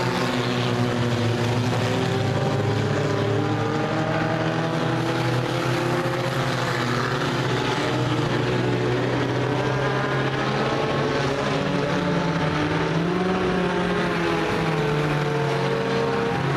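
Engines of several U-car class race cars running together in a race, a mix of engine notes rising and falling in pitch as the cars go by.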